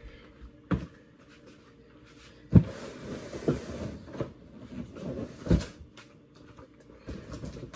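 Cardboard box and its packaging tray being pulled apart by hand: several knocks, the loudest about two and a half seconds in, with scraping and rustling of cardboard between them.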